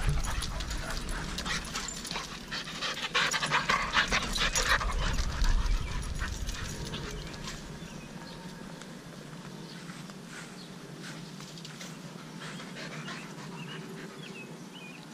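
Dogs panting hard during play, the quick breaths loudest in the first half and easing off later.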